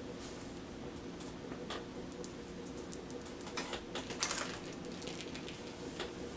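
Small toys and plastic packaging handled by hand: scattered light clicks and rustles, busiest about halfway through.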